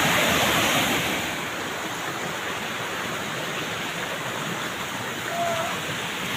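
Steady rush of a forest waterfall, getting a little quieter about a second in.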